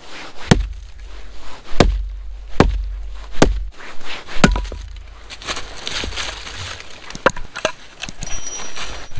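Small axe chopping into a log, a series of sharp woody blows about a second apart, with a piece of wood splitting off near the end.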